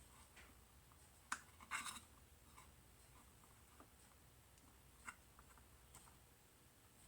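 Faint handling noises of small parts and hand tools on a workbench: a sharp click about a second in, a brief scrape right after, and another light click about five seconds in.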